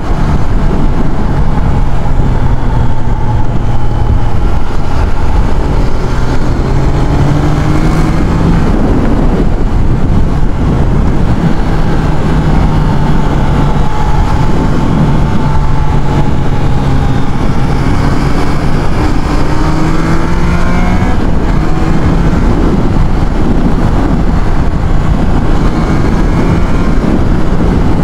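Triumph Trident 660's inline three-cylinder engine under way, its note rising in pitch several times as it accelerates and dropping back between rises.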